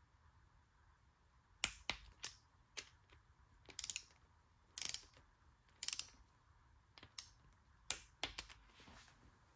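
Ratchet-head torque wrench clicking in short, irregular runs as it snugs down a connecting-rod cap bolt on a first 180 inch-pound pass. The clicks start about a second and a half in.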